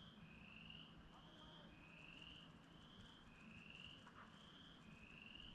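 Faint night-time calling of small animals: short high flat notes alternating with longer rising notes, one about every three-quarters of a second, over a faint low steady hum.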